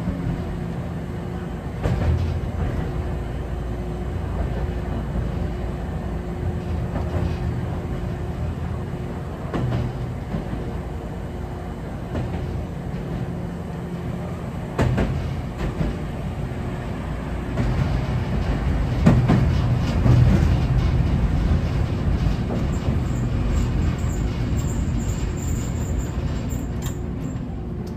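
Hankai Tramway Type 701 streetcar running along its tracks, heard from inside the car: a steady low rumble with a thin steady hum, and now and then a sharp clack of the wheels over rail joints.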